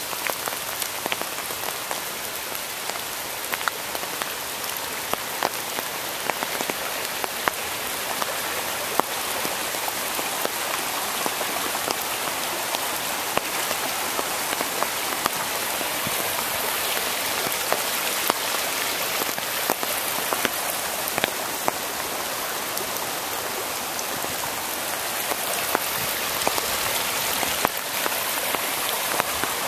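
Steady rain falling in woodland, a constant hiss with many sharp, separate taps of raindrops landing close by.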